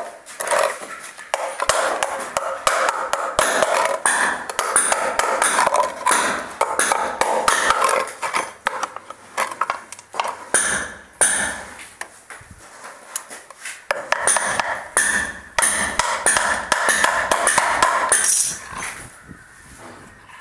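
Combination pliers used as a hammer, tapping nails into a small wooden box: a long run of quick, light metallic taps on the nail heads and wood, dying away near the end.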